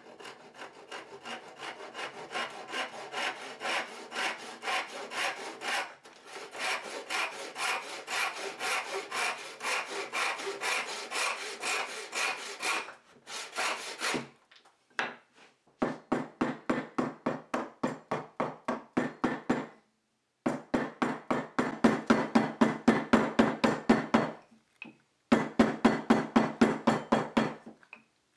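A backsaw cutting across the end of a wooden chisel handle in steady strokes, about two a second. Then, after a short pause, a hammer striking the handle's end in quick even blows, about three a second, in three runs with brief breaks, spreading the end grain over a steel ring.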